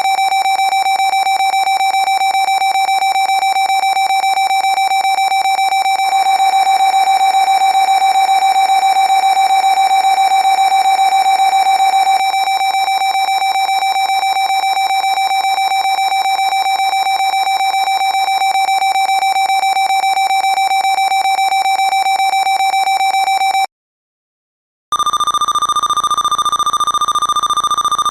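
Synthesized imitation of MRI scanner gradient-coil noise: a loud, steady buzzing tone made of very rapid pulses, growing louder and fuller about six seconds in and dropping back about twelve seconds in. Near the end it stops for about a second, then a higher-pitched pulsing tone starts, a new scan sequence.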